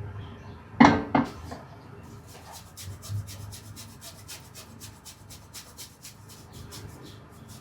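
Two sharp knocks in quick succession, then a steady run of brief scraping or tapping strokes, about four a second, from kitchen utensils at work during breakfast preparation.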